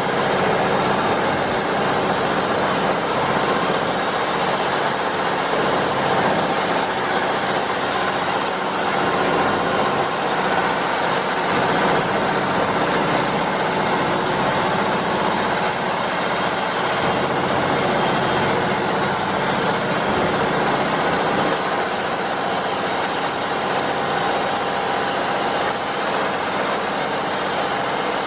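Canal passenger boat's engine running steadily with the boat under way, a constant engine noise with no break.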